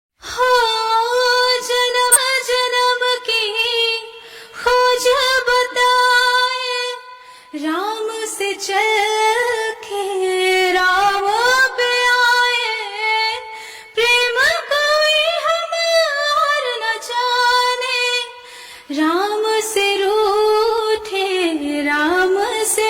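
A woman singing a slow melody in long sung phrases, each held and bent through several notes, with short breaths between them and no accompaniment apparent.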